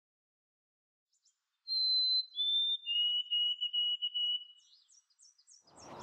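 White-throated sparrow song of clear whistled notes, starting a couple of seconds in. Each held note is lower than the last, and the final one breaks into a run of quick repeated notes. Faint, high chips follow.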